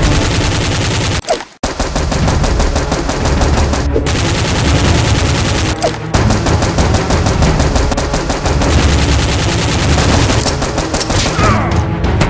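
Rapid automatic-gunfire sound effects, shots following one another in quick continuous bursts, with a short break a little over a second in.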